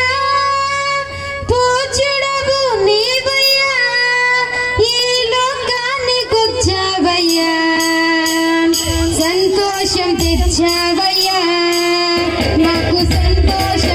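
A woman sings a Christian song into a microphone over a PA system, holding long wavering notes over sustained keyboard backing. A low drum beat comes in strongly near the end.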